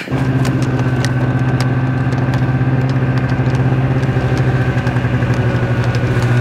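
A motor running steadily at one unchanging pitch, with faint ticks over it.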